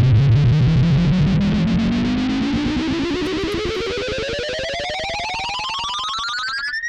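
Intro music: a distorted tone gliding steadily up in pitch, then cutting off suddenly at the end.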